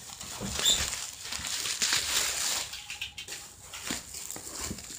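Plastic bubble wrap being handled and pulled apart, crinkling and rustling irregularly.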